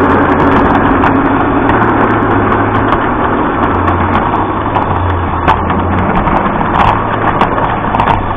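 Garden railway train running along its track, heard from on board: a steady motor hum with irregular clicks of the wheels over the rails.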